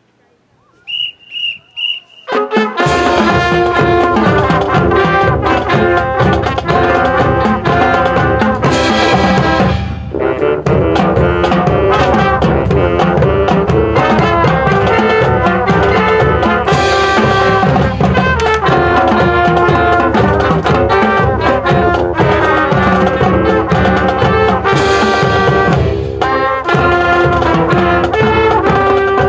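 Three short high-pitched tones, then a marching band of brass and drums starts playing loud about two and a half seconds in and keeps playing.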